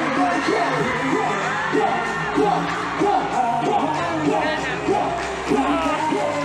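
Live pop music with male vocals sung into microphones over the stage sound system, with fans whooping and yelling now and then.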